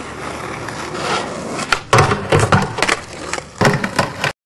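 Skateboard wheels rolling on asphalt, then the board knocking onto a wooden ledge box and grinding along it with several sharp knocks and scrapes. The sound cuts off abruptly near the end.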